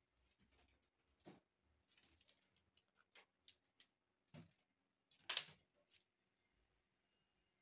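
Near silence with scattered faint clicks and rustles, and one louder brief rustle about five seconds in.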